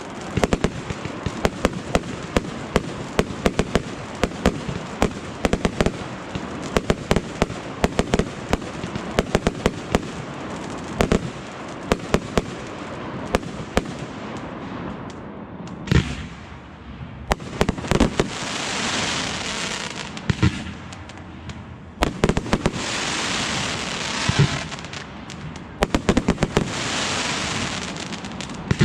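Aerial fireworks going off: a dense run of rapid cracks and pops for the first half, then single bangs, each followed by a couple of seconds of crackling, sizzling spark bursts.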